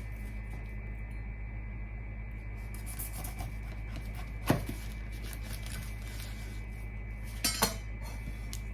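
Dishes and cutlery clinking: one sharp clink about halfway through and two close together near the end, over a steady low hum.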